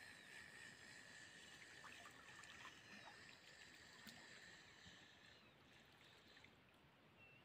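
Near silence: a faint steady insect trill that fades out about five seconds in, a few faint bird chirps, and faint splashes of a hooked perch thrashing at the surface while it is played on a feeder rod.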